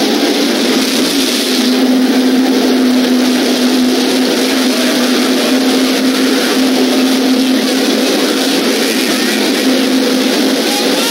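Drag racing cars' engines running at the starting line, a loud, steady drone that holds one pitch with no launch or pass.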